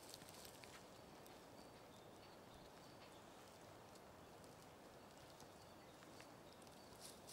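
Near silence: faint outdoor background hiss with a few faint, short ticks.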